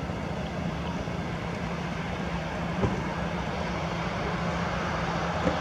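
Airbus A320-214's CFM56 turbofan engines running at low power as the airliner taxis on the runway, a steady jet noise with a low hum that grows slightly louder. A brief knock about three seconds in.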